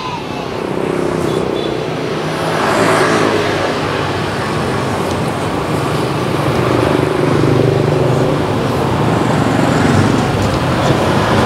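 Road traffic passing close by: vehicle engines running over a steady road rumble, rising and falling as vehicles go past.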